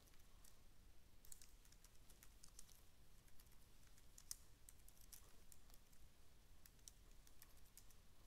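Faint typing on a computer keyboard: scattered keystrokes in short, irregular runs.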